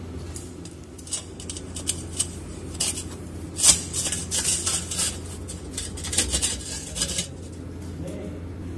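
Metal clinks and scrapes as hands work the stainless mesh basket inside the open flange of a chilled-water line strainer, in a quick irregular run that is loudest about three and a half seconds in. A steady low hum runs underneath.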